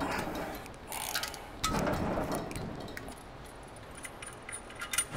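Ratchet wrench clicking with small metal clinks as the main girdle bolts on a Honda K24 engine block are loosened, busiest in the first half and quieter after.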